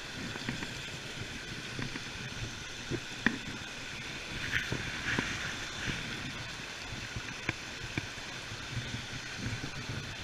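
Steady rush of flowing river water, with scattered small clicks and knocks and a brief louder hiss about five seconds in.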